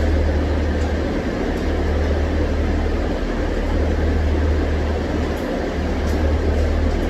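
The three-rotor rotary engine of a tuned Mazda RX-7 idling, a steady loud low drone that dips briefly now and then.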